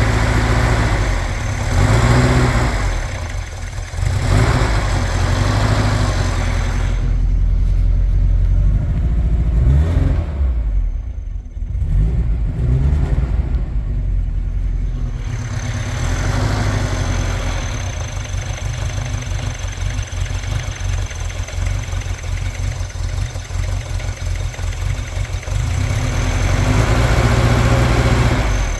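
Engine running after a no-start the day before, revved up and down several times during the first fifteen seconds or so, then running more steadily, picking up again near the end.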